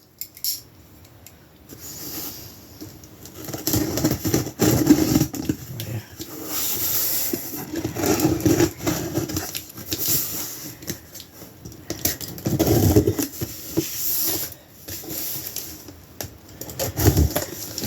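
A cardboard shipping box being cut open with a knife and handled: irregular scraping, rustling and tearing of cardboard and packing tape, with a few clicks and knocks.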